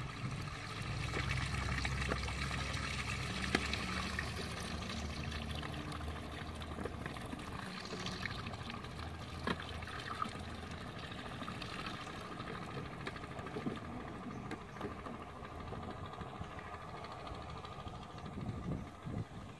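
River water sloshing and pouring as a wading man lifts and empties plastic-bottle fish traps, with small splashes and knocks. A low steady hum sits underneath for the first several seconds.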